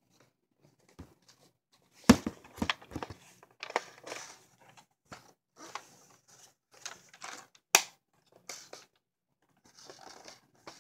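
Hands working a plastic Nerf Rival Apollo XV-700 blaster: irregular sharp plastic clicks and knocks with rustling between them, the loudest clicks about two seconds in and near eight seconds.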